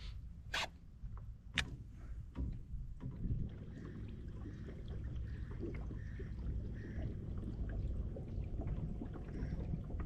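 Kayak moving on the water: a steady low rumble of water and hull, with two sharp clicks in the first two seconds and faint, evenly repeated high chirps in the second half.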